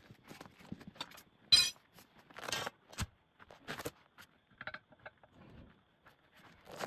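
Metal tools or parts clinking and knocking during tyre work, with one sharp, ringing metallic clink about a second and a half in and a short scraping sound about a second later.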